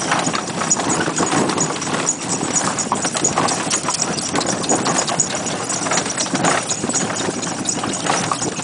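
A pony's hooves clip-clopping steadily on a dirt lane as it pulls a small horse cart, with the cart rattling along behind it.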